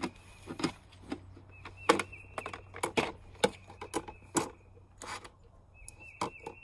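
Ryobi cordless drill driving a bolt through the side of a plastic storage box in several short runs, each a steady high whine, mixed with sharp clicks and knocks of pliers and metal fittings against the nut and box.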